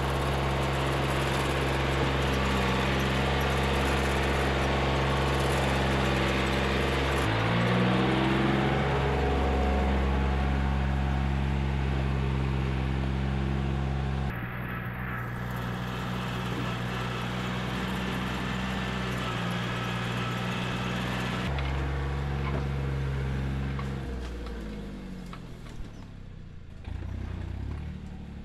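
Yanmar crawler dumper's three-cylinder diesel engine running steadily, its pitch changing abruptly a few times, then the revs falling away near the end.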